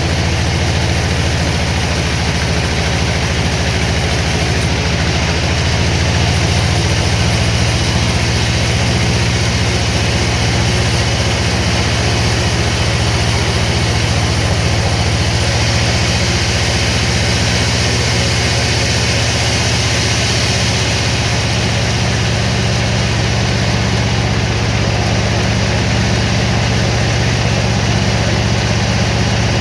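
Sawmill machinery running steadily: a heavy engine's low, even drone with a constant hiss above it.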